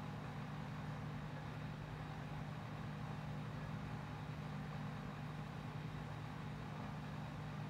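Steady low machine hum with an even hiss behind it: the constant background drone of running lab equipment.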